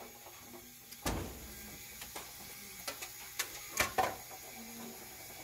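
LEGO EV3 rubber-band mini gun firing: a medium motor turning a train of 40-tooth gears, with a dull knock about a second in and then a string of sharp snaps and clicks as rubber bands fly off and strike plastic cups.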